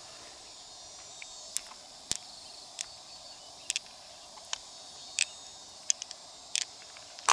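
Insects chirring in a steady high hiss, with about a dozen irregular sharp clicks and taps over it.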